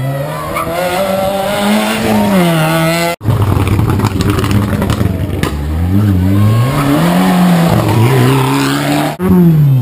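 Rally car engines at full throttle, the pitch climbing and dropping again and again as the drivers shift gears, with tyres squealing near the end. The sound cuts off abruptly about three seconds in and again shortly before the end.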